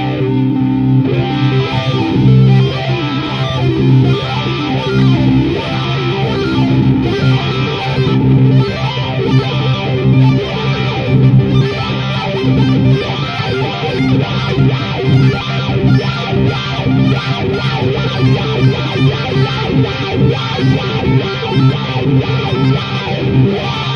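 Guitar music: plucked guitar playing a steady rhythmic pattern over sustained low notes.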